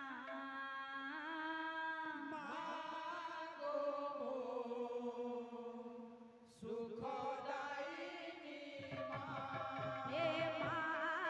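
Odia folk song sung into microphones over a PA, a voice holding long notes that bend in pitch. The sound dips briefly about two-thirds of the way through, and low drum beats come in near the end.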